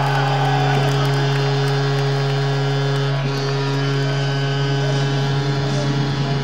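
Ice-hockey arena goal horn sounding one long, steady low blast over a cheering crowd, marking a home goal; it cuts off at the end.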